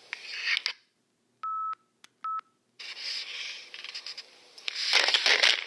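Two short electronic beeps at one steady pitch, the first longer than the second, set in a gap of dead silence, between stretches of hiss from a microcassette tape recording. A loud noisy rush comes near the end.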